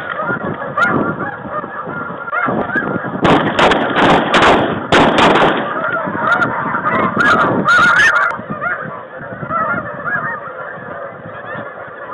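A large flock of snow geese calling, many short, high honks overlapping without pause. Several short bursts of noise break in about three to five seconds in and again around eight seconds.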